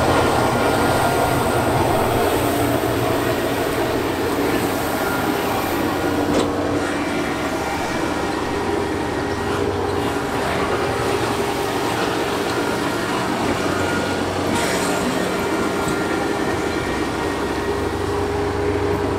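Kubota DC70 combine harvester running steadily as it is driven slowly across a levelled crossing, with a few brief knocks.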